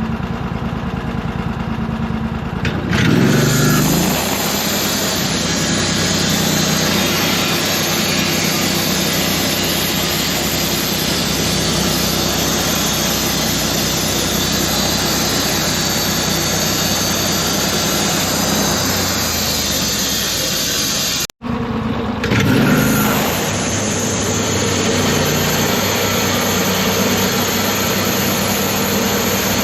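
Engine of a sawmill running, rising in pitch and level about three seconds in and then holding under load with a dense hiss over it. It drops out for an instant a little past twenty seconds, then revs up again and runs steadily.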